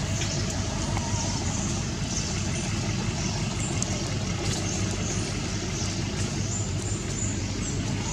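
Steady low rumble of background noise with no clear single event.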